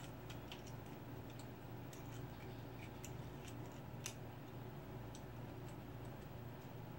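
Faint, irregular small clicks and ticks of fingers handling the wires and small parts on a megaphone's circuit board, the sharpest about four seconds in, over a steady low hum.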